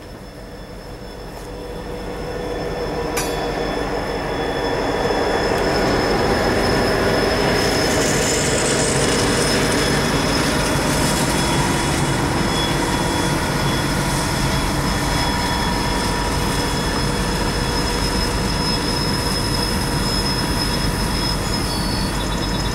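EMD GP40 diesel locomotive with a road slug pulling a freight train past, the sound building over the first five seconds as they come close and then holding steady as the locomotives and the covered hoppers roll by.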